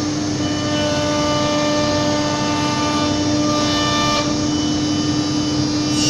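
CNC router running: a steady whine from the spindle over machine noise, with fainter higher tones coming and going.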